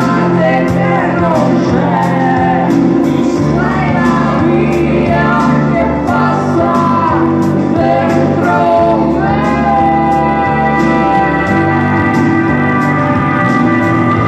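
Live acoustic song: a man singing into a microphone over his own acoustic guitar. About nine seconds in, the melody gives way to long held notes.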